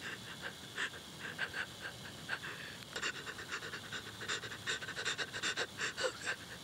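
Rapid, shaky panting breaths of a frightened, crying young woman close to the microphone. The breaths come quicker and louder from about three seconds in.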